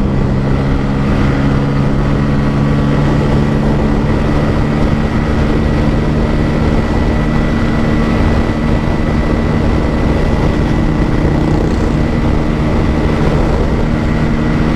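Bajaj Pulsar N160's single-cylinder engine running hard at high revs in fifth gear during a full-throttle top-speed run, holding a steady note, with heavy wind rush over the microphone.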